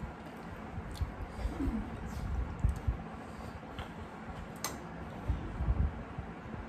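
Close-up eating by hand: fingers scraping and gathering rice on brass plates, with scattered small clicks and soft low thumps. In the second half steel tumblers are lifted for drinks, adding a sharp click or two.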